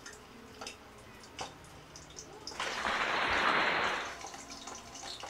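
Boiled pork leg going into hot cooking oil: a burst of sizzling starts about two and a half seconds in and dies down after about a second and a half. A few faint clicks come before it.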